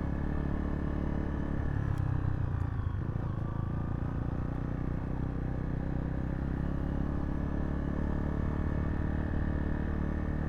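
Zontes T2 350 motorcycle's single-cylinder engine running at steady low revs under way, a constant low rumble.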